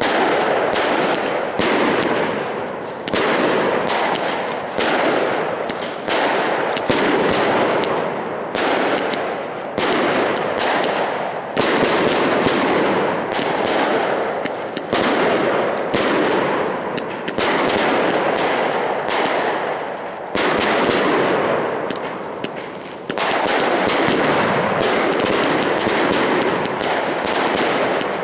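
Lucky Fireworks FD2038 'All Mine' 100-shot 16 mm salute cake firing: a rapid, unbroken string of sharp bangs, several a second, echoing into one another.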